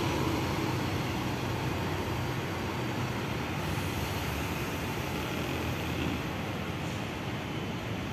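A large bus engine running steadily as the bus moves off, over a steady background of traffic noise.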